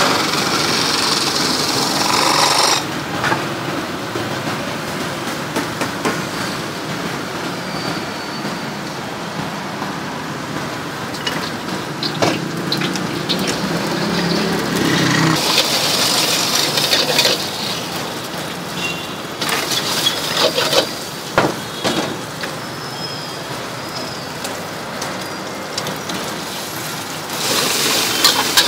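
Stir-frying in a wok over a high gas flame: a steady rush of the burner and sizzling, louder three times (at the start, about halfway and near the end), with the metal ladle scraping and knocking against the wok.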